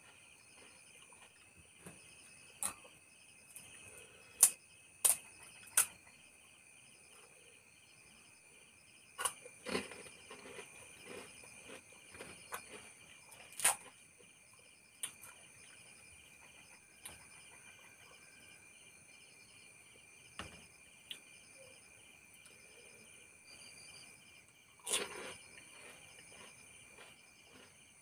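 Scattered sharp crunches and clicks as pani puri shells are bitten and eaten, over a steady pulsing chorus of night insects chirping.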